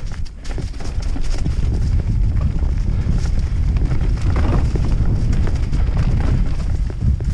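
YT Capra enduro mountain bike descending a rocky dirt trail at speed: tyres crunching over stones and leaves, with the bike rattling and knocking over the bumps, under a steady rumble of wind on the microphone.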